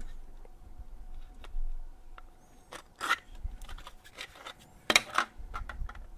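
Hard 3D-printed plastic parts of a Petsfang v2 fan duct clicking and clacking together as they are handled and test-fitted by hand. The loudest clacks come in small clusters about three and five seconds in.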